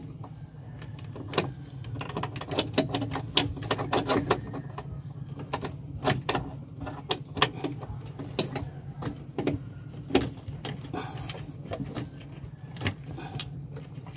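Irregular sharp metallic clicks and knocks of a wrench working a stiff, rust-seized 12 mm bolt on a clutch master cylinder mounting, over a steady low hum.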